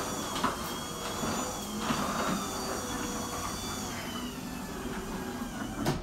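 Overhead garage door opener motor running steadily with a thin whine as it raises a sectional garage door along its tracks, the springs, hinges and rollers freshly greased with white lithium grease. Near the end it stops at the top with a clunk.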